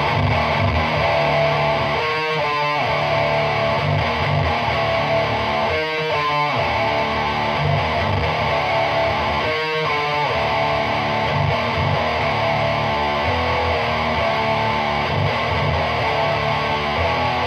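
Heavily distorted electric guitar, a Gibson SG tuned to D standard, through a Lone Wolf Audio chainsaw-style distortion pedal into a Peavey 6505 amp and 2x12 cabinet: grinding low riffs with held notes, broken by three short flurries of fast picking.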